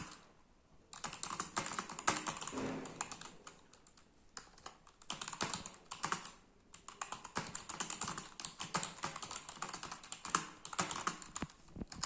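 Fast typing on a Zebronics computer keyboard: runs of quick key clicks with a few short pauses, the longest just after the start and another about four seconds in.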